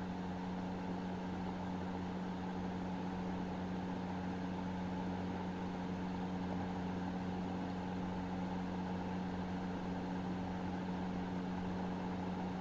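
A steady low mechanical hum, even and unchanging, with a constant drone of several fixed tones.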